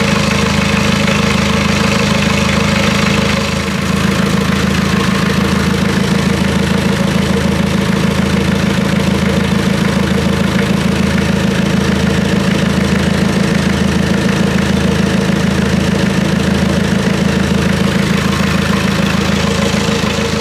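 International Harvester 444 tractor's diesel engine idling steadily, with a brief dip and a slight change in its note about four seconds in.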